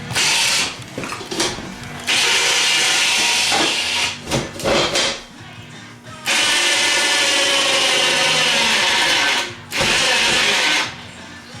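Power tool working steel in several long bursts, each running one to three seconds with short breaks between, under background music.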